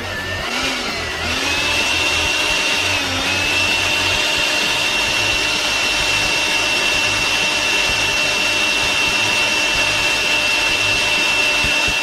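Leaf blower running steadily, a loud rush of air with a high motor whine that climbs as it spins up in the first second or so and dips briefly about three seconds in.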